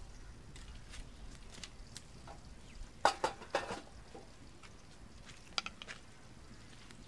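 Stainless steel kitchenware clattering: a quick run of sharp metal clinks about three seconds in and a few lighter clinks near six seconds.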